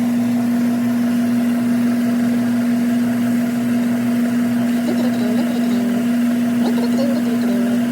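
Whirlpool dishwasher running with a newly fitted wash pump motor: a steady, even hum.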